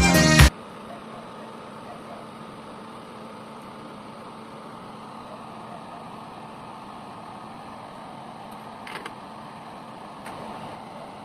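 Background music cuts off suddenly about half a second in, leaving a steady hiss of room noise with a faint low hum. Two faint clicks come near the end.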